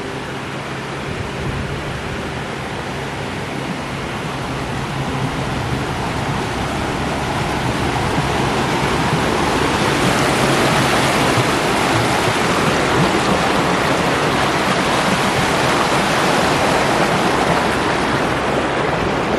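Rushing stream water, growing louder over the first several seconds and then holding steady.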